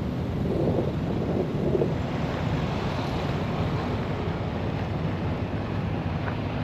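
Steady low rumble of a vehicle driving, with road and wind noise.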